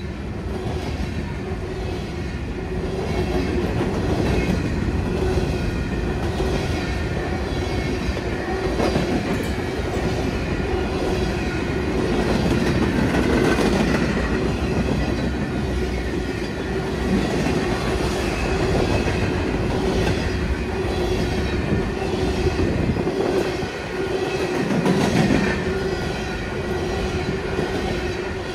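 Freight train cars rolling past close by: a rumble with the repeated clacking of steel wheels, and a steady squeal held under it.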